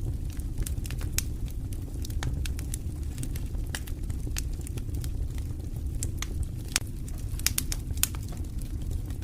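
Wood campfire crackling: irregular sharp pops and snaps over a steady low rumble, with several louder pops in the second half.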